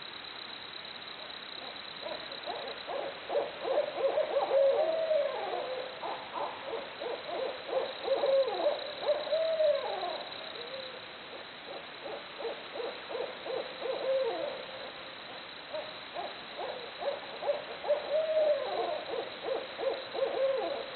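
Barred owls in a loud, excited bout of rapid hoots mixed with rising-and-falling wails, the wild monkey-like caterwauling of the species. It comes in two bouts: the first starts about two seconds in, there is a brief lull, and a second bout runs near the end.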